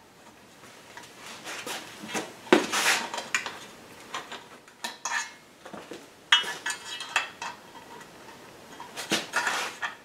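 Irregular light metallic clinks and rattles of hand tools and small screws being handled: a T-handle hex key and screws knocking against an aluminium angle rail and the milling machine table, with a few louder knocks scattered through.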